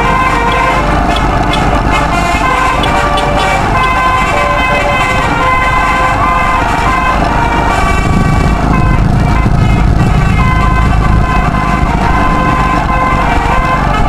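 A bus's telolet musical air horn playing a tune of held notes that step up and down in pitch, over the steady rumble of a motorcycle and wind noise, which swell louder midway.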